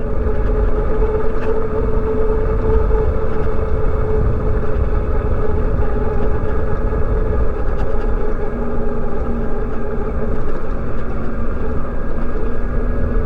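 Wind rush and road noise from riding a 2020 Zero DSR electric motorcycle at a steady cruise, with a steady whine held at one pitch over the rumble.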